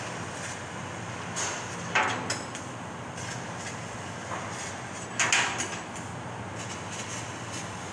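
CNC laser cutting machine cutting sheet metal: a steady machine noise with short, loud hissing bursts, the strongest about two seconds in and again about five seconds in.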